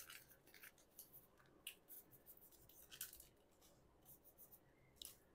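Very faint rustling and sliding of a stack of trading cards being handled in the hands, with a few short scrapes, the clearest about three and five seconds in.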